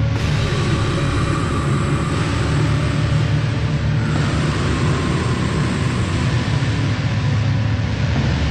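Lo-fi black/funeral doom metal: a dense, loud wall of heavily distorted guitar over low droning bass, the chord shifting every couple of seconds.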